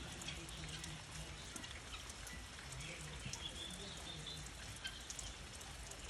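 Steady light rain with scattered sharp drop ticks, and a few faint high bird chirps in the middle.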